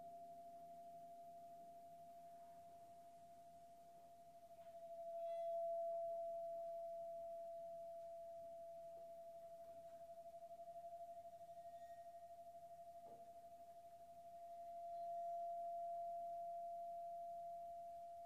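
A single held, pure instrumental tone from the ensemble. It swells twice, about five seconds in and again near fifteen seconds, and slowly fades after each swell, with fainter lower notes dying away in the first few seconds.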